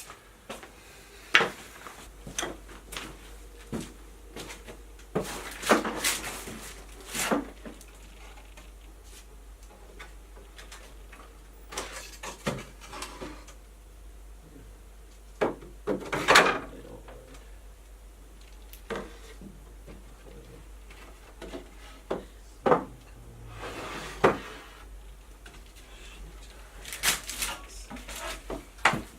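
Irregular knocks, clacks and short scrapes of workshop materials being handled, shifted and set down, with a dozen or so separate hits spread unevenly, a few of them loud.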